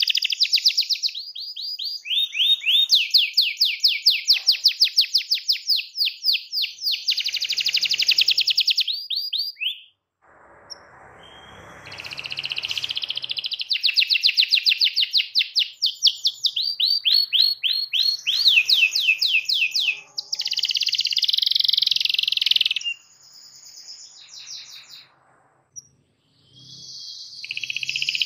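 Domestic canary singing long, rapid rolling trills in high-pitched phrases. There is a short break about ten seconds in and a brief silence shortly before the end.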